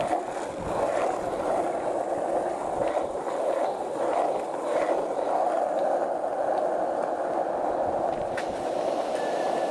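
Skateboard wheels rolling steadily over rough pavement, a continuous grinding rumble.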